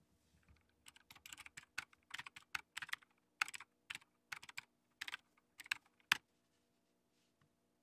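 Typing on a computer keyboard: an irregular run of quick key presses for about five seconds, stopping about six seconds in.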